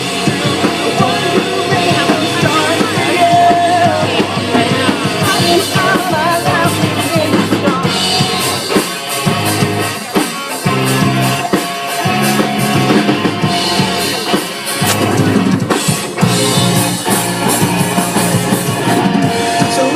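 Rock band music with a drum kit and bass, playing an instrumental passage of a pop-rock song. The bass and kick drop out briefly twice.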